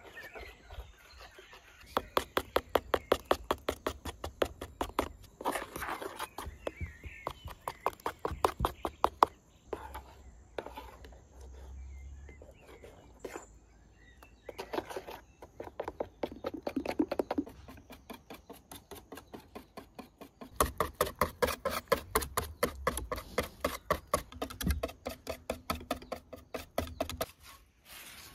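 A metal spoon beating thin batter in an enamel pot: rapid, even clicks of the spoon against the pot in two long runs, starting about two seconds in and again about twenty seconds in, with slower stirring strokes between.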